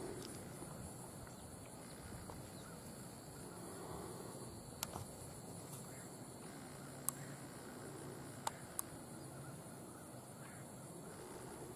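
Faint outdoor ambience: a steady high-pitched insect drone, with four sharp clicks spread through the middle.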